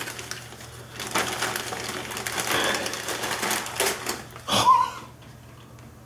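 Packing paper rustling and crinkling as a large bromeliad is pulled out of its wrapping, a dense run of crackles with the loudest rustle about four and a half seconds in, dying down near the end.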